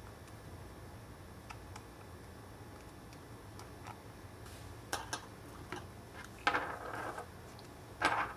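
Faint ticks and light clicks of small hand tools working on an iPhone 3GS, with a few sharper clicks about five seconds in and a short scraping rustle about a second and a half later.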